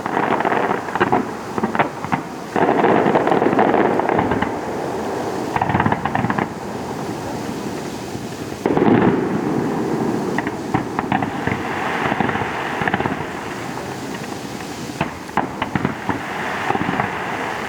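Aerial fireworks display: a continuous barrage of bursts and crackling, swelling louder about three seconds in and again about nine seconds in.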